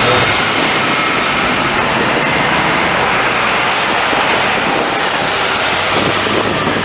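Steady city street traffic noise, the running of bus engines and tyres on the road, heard from the open upper deck of a moving double-decker bus.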